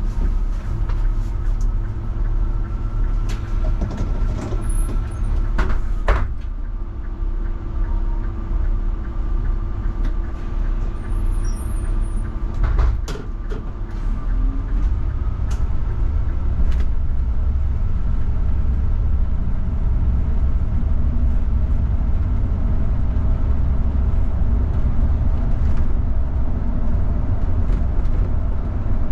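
Mercedes-Benz Citaro CNG city bus running: a steady idling hum with a constant whine while standing, a few sharp clicks and knocks, then about 13 seconds in a heavier, louder low rumble as the bus pulls away and drives on.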